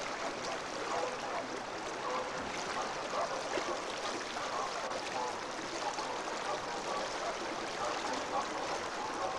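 Whitewater rapids rushing steadily, with faint voices under the noise of the water.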